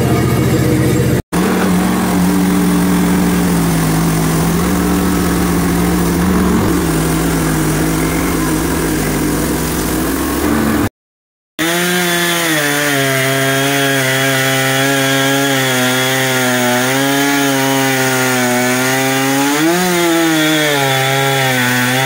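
Husqvarna gas chainsaw ripping lengthwise through a log, running steadily under load. Its pitch sags and picks back up once near the end. The sound breaks off briefly about a second in and again about halfway through.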